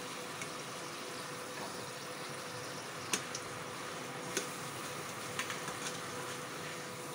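Urad dal papad frying in hot oil in a steel kadhai: a steady sizzle, with a few light clicks of a perforated metal slotted spoon against the pan and a faint steady hum underneath.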